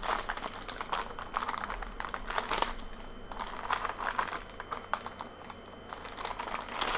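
Foil booster-pack wrapper crinkling and rustling as it is worked open by hand, a busy, uneven run of small crackles and clicks.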